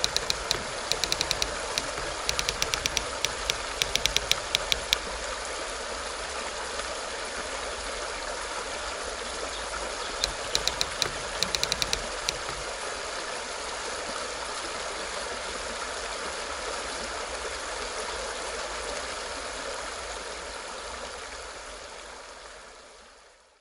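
Upper Yarra River stream flowing with a steady rush of water, fading out near the end. Two runs of rapid, sharp high clicks cut in over it, one about a second in and another about ten seconds in.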